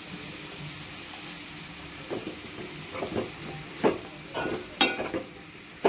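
Cauliflower masala sizzling in a kadai. From about two seconds in, a spoon scrapes and clinks irregularly against the pan as the mix is stirred.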